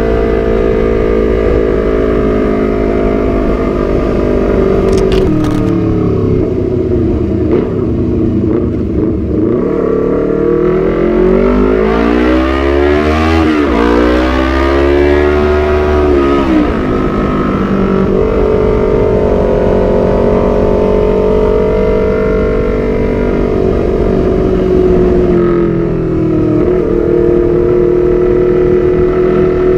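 2017 Honda CBR250RR's parallel-twin engine running loud through a short Proliner TR-1 full-system exhaust. It holds a steady note, sags in pitch, then climbs sharply about ten seconds in and drops back, before settling to a steady note again.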